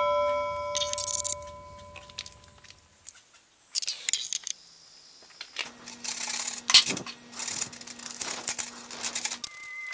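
A bell-like chime rings out and fades, followed by high sweeping tones. Then a serrated knife saws through a block of Styrofoam in rough, irregular scraping strokes.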